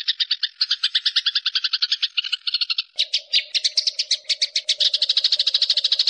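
A flock of sparrows chirping in a dense, rapid chatter of short high chirps, about ten a second. A steady hum joins in about three seconds in.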